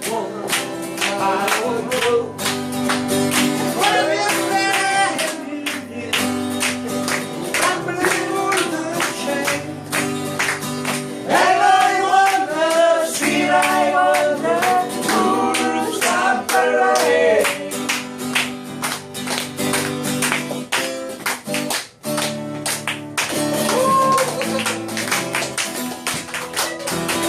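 Acoustic guitar strummed in a steady rhythm under a singer's voice, the vocal line coming in and out between guitar-only stretches.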